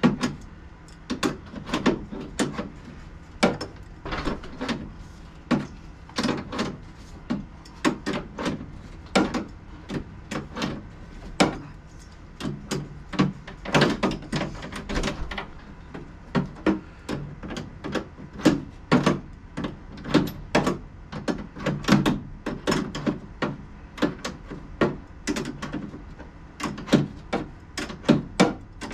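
Hand ratchet wrench clicking in short, irregular strokes as a bolt is backed out, with small metal clicks and knocks all through.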